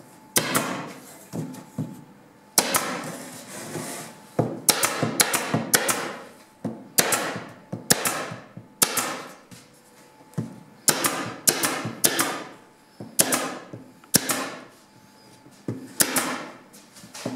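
Pneumatic nail gun firing into the joints of a softwood door frame: a sharp crack for each shot, each followed by a short hiss of exhaust air. It fires in quick clusters of two to four shots, with pauses of about a second between clusters.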